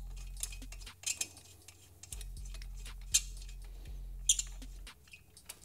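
Light, scattered metal clicks and taps as a mounting screw is started by hand and an aluminium lifter bracket is held against a motorcycle swingarm.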